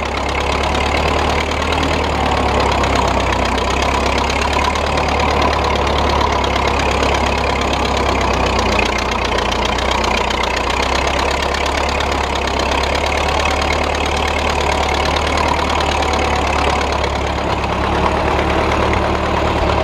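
Engine of a 1927 Model T Ford homemade tractor, a four-cylinder flathead, running steadily under load while pulling a plow.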